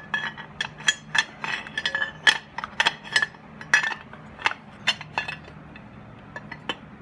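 Light metal clinks and taps, many in quick irregular succession and thinning out near the end, as a Harley-Davidson Sportster rocker box cover and its small bolts are handled and set in place.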